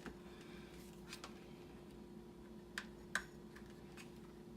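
Small plastic clicks and taps as the electronic deadbolt's wiring plug is worked into its socket by hand, with two sharper clicks close together about three seconds in, over a faint steady hum.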